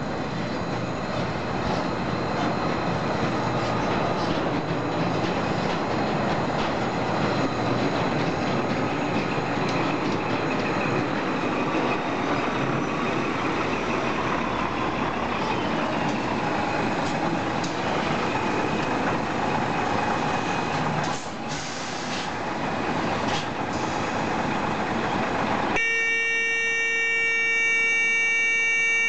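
Scania R420 truck running as it reverses slowly with its tipper trailers, a steady heavy engine and rolling noise. About 26 seconds in, a steady electronic buzzer tone starts and holds to the end.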